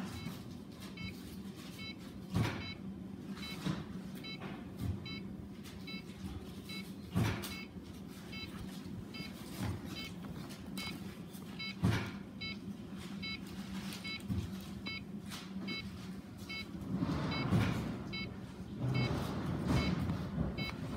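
Fujitsu ESPRIMO desktop PC making an abnormal noise: a steady hum with short high-pitched chirps repeating about every half second, and a louder knock every five seconds or so.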